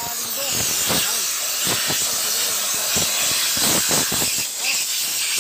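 Compressed air hissing from a blow-gun nozzle on an air hose, blown into a forklift hub and clutch housing, with a few light knocks of metal.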